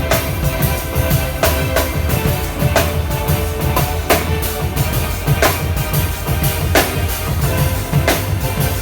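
Amplified keyboard music from a PianoArc circular keyboard, with held chords over a drum-kit beat: a sharp snare-like hit about every second and a third, and steady bass and kick below.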